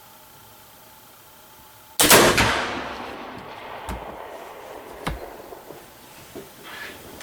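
Flintlock muzzleloading rifle firing a single shot about two seconds in: a sharp report that rings off over about a second. A few fainter sharp knocks follow.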